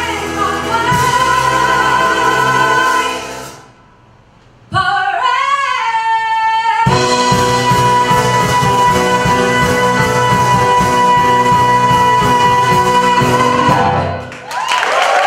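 A woman singing a Broadway show tune with a live band, which drops out for a moment about three and a half seconds in; she sings an unaccompanied phrase with vibrato, then the band comes back in under one long held final note of about seven seconds. Applause breaks out near the end.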